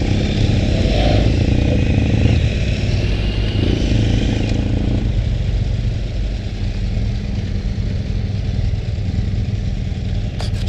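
BMW F800 GS motorcycle's parallel-twin engine running steadily while riding on a gravel track, mixed with road noise. A few short clicks near the end.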